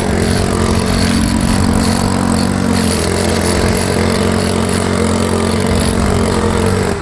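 A loud machine running steadily, a dense mechanical din with a constant low hum, which starts and stops abruptly.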